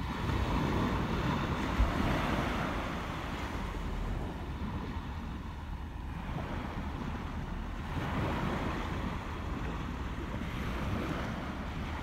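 Sea surf washing against the rocks below, with wind on the microphone. The wash swells up in the first few seconds and again about eight seconds in, and there is one brief knock just before two seconds.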